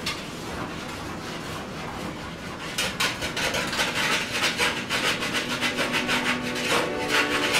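A hand scrubs a gas stovetop around the burners with a scrub pad or cloth: a steady rub at first, then from about three seconds in fast, rasping back-and-forth strokes that are louder.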